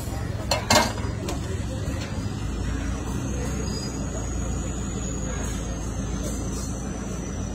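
Two sharp metallic knocks just under a second in, from a steel spatula striking a flat iron tawa griddle, over a steady low rumble.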